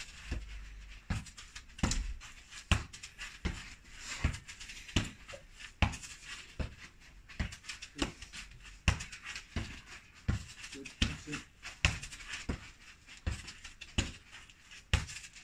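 A football being kicked and trapped over and over in a passing and receiving drill: sharp thuds of boot on ball about every second or so.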